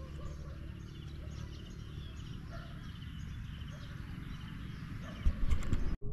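Open-air ambience: faint small birds chirping in short repeated calls over a steady low rumble, with a few knocks near the end.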